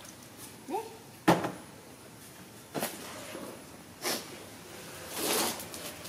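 Handling noises at a front-loading washing machine: a sharp knock about a second in, just after a brief squeak, then several short swishing rustles as clothes are handled.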